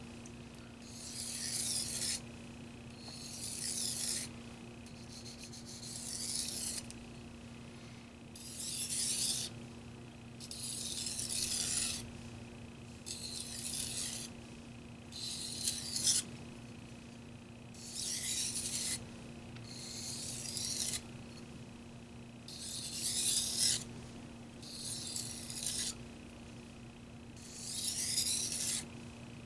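Tojiro white steel No. 2 petty knife stroked edge-trailing across a Shapton Pro 1000-grit whetstone: about a dozen gritty scrapes, roughly one every two seconds. These stropping strokes work down the burr raised on the edge.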